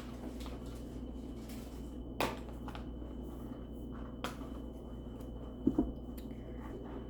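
Small objects being handled: a few light clicks and a louder double tap about two-thirds of the way through, over a steady low hum with a faint high whine.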